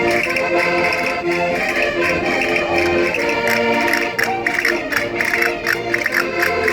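Concertinas playing a lively vira tune, their held reed chords shifting from note to note. About four seconds in, quick sharp clicks join the music in a steady rhythm.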